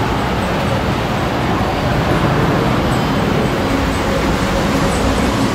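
Loud, steady rush of flowing water close to the microphone.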